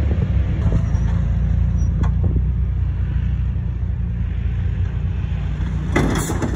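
Lifted Toyota 4Runner's engine running low and steady as the truck creeps over a crest and noses down a steep dirt drop. A short, noisy burst comes near the end, as the truck tips nearly vertical.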